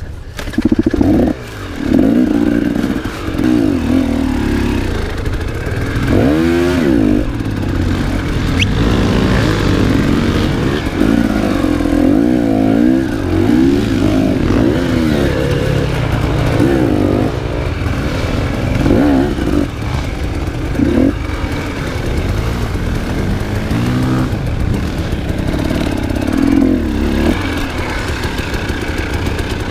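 Enduro motorcycle engine being ridden hard, its revs rising and falling again and again as the throttle is worked.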